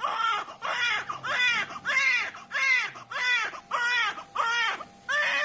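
Newborn baby crying: a run of about ten short wails, roughly two a second, each rising and falling in pitch.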